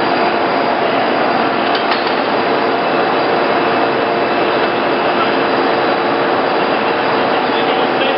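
POREBA TCG 125 heavy-duty lathe running: a loud, steady machine noise with a constant gear whine.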